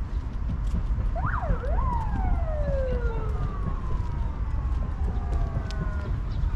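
A distant siren gives a quick rising-and-falling yelp about a second in, then winds down in one long falling wail. A steady low rumble of wind on the microphone runs underneath.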